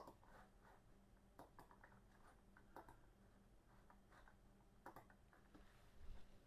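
Faint, scattered clicks of a computer mouse button, several over a few seconds, as on-screen choices are made, over a low steady hum.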